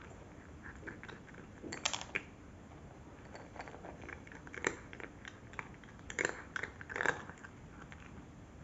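A cat crunching dry kibble: irregular crisp crunches, with louder bites about two seconds in and a cluster of them between about four and a half and seven seconds in.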